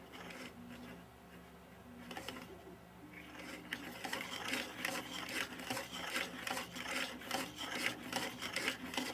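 3D-printed plastic cam turned by hand, rubbing against its cam followers while the slotted arm slides back and forth in its guides: a light scraping and clicking of plastic parts that gets busier about three seconds in.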